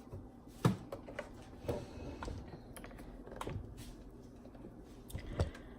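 Irregular light clicks and knocks of kitchen containers and utensils being handled, a few sharper knocks among fainter ticks.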